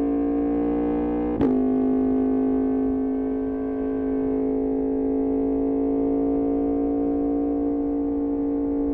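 Yamaha MT-10's crossplane inline-four running through an Austin Racing exhaust, holding a steady drone at a slowly rising pitch as the bike pulls at a near-constant speed. A single sharp crack comes about one and a half seconds in.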